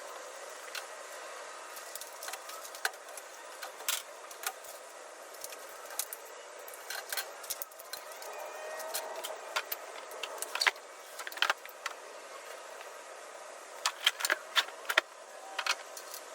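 Scattered metallic clinks, jingles and knocks from the parts and hardware of a steel tool cart being handled as they are unpacked, over a steady background hiss. The clicks come in clusters, most densely in the second half.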